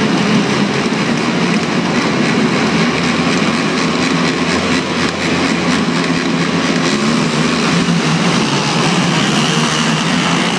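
A pack of racing quad ATVs running their engines together at the starting gate, then pulling away as the race starts.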